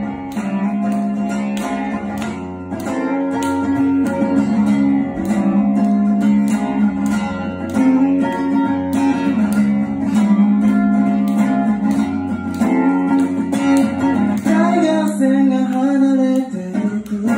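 Acoustic-electric guitar strummed in a steady rhythm, and a man's singing voice comes in near the end.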